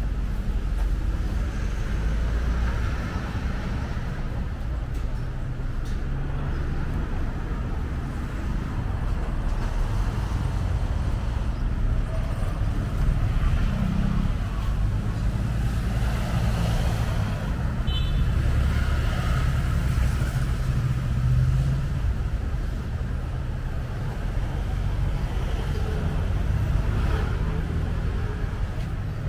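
Road traffic on a busy city street: a steady low rumble of passing vehicles' engines and tyres, swelling and easing as they go by.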